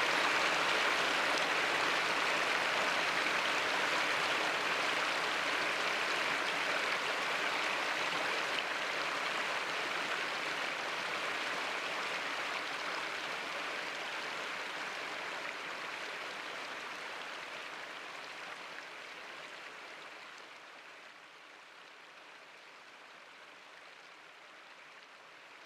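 Water rushing steadily over a small rock cascade, a river falling in short drops of a few feet over several scattered ledges at low flow. The sound fades slowly over about twenty seconds and then holds faint.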